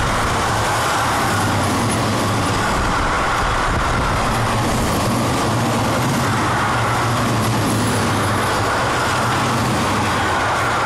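Freight train of empty double-deck car-transporter wagons rolling past close by: a loud, steady rumble of steel wheels on the rails.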